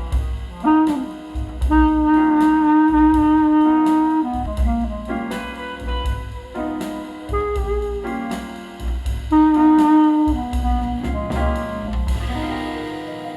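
Jazz track with a saxophone lead holding long notes over drum kit and bass, played through a tube amplifier into fullrange speakers and recorded for an amplifier comparison.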